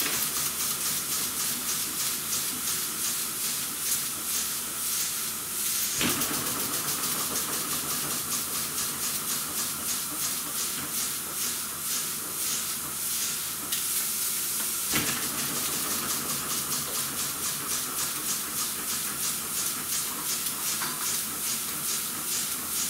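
Small homemade brass twin-cylinder model steam engine running slowly on steam: a steady hiss of steam broken into quick, regular exhaust puffs, with a sharp click about six seconds in and again near fifteen seconds.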